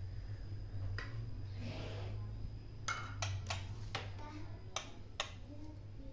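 A caged white-rumped shama making a string of sharp clicks, about six in the second half, over a steady low hum.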